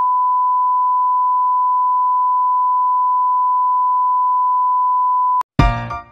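Colour-bars test tone: one unbroken, steady, high beep at a single pitch that cuts off sharply about five and a half seconds in. Music with drum hits starts right after it.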